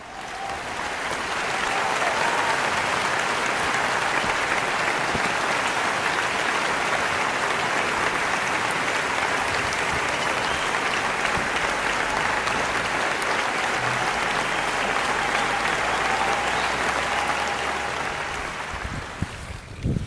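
Audience applause: steady clapping that fades in over the first couple of seconds and fades out near the end.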